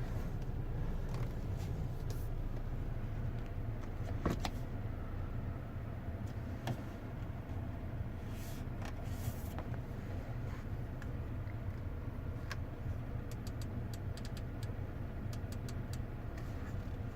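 Steady low rumble of a car running, with scattered light clicks and taps.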